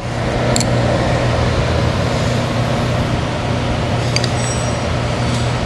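A motor running steadily with a low hum, with a couple of faint light clicks over it.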